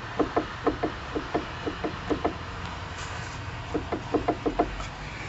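Repeated clunking knocks from the worn lower control arm ball joint on a Mahindra KUV100's right front wheel as the suspension is worked, the looseness that causes its suspension noise. A run of about four knocks a second, a pause, then a quicker cluster near the end.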